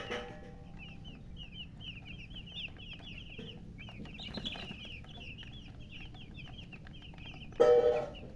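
Newly hatched chicks peeping continuously, a rapid stream of short high peeps overlapping one another. Near the end a single louder, lower call cuts in briefly.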